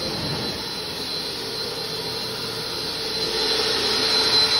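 Portable carpet-cleaning extractor's vacuum motors running with a steady whine and a thin high tone. It grows louder about three seconds in.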